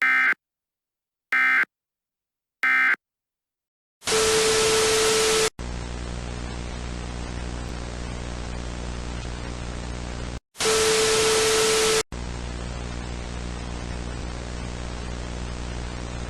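Three short, shrill digital data bursts of an Emergency Alert System end-of-message signal, about a second and a half apart. Then broadcast static follows: two loud bursts of white noise carrying a steady mid-pitched tone, each about a second and a half long, about 4 s and 10.5 s in, between quieter steady static with a low hum.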